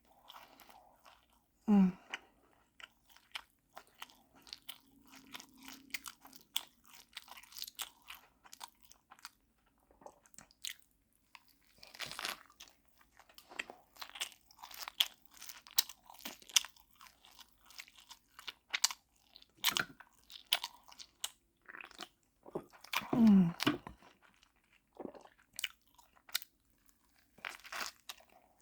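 Close-up eating sounds: wet chewing and crunching of food, with a steady run of small mouth clicks and smacks. Two louder short throat sounds with a falling pitch stand out, a brief one about two seconds in and a longer one of about a second near the end.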